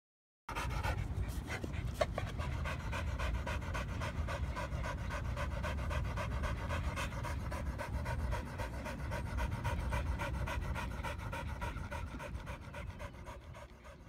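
American bulldog panting hard and fast in an even rhythm, open-mouthed and winded from play. It starts about half a second in and fades away near the end.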